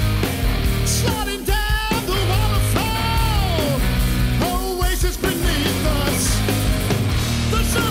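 Background rock music with a singing voice over a steady bass line.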